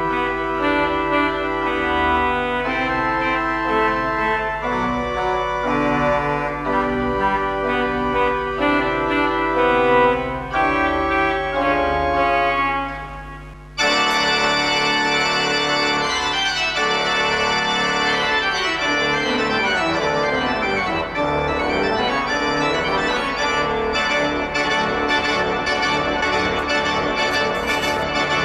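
Pipe organ playing held chords. About 14 seconds in, after a sudden cut, it goes on with a busier passage of fast running notes up and down.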